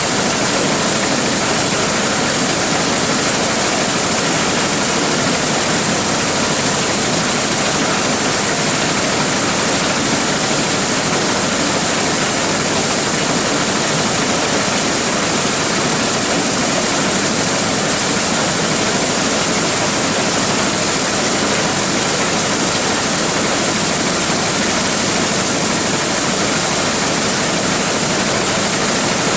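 Large corn sheller (threshing blower) running continuously at full work, a loud, even rushing noise with a steady high hiss over it.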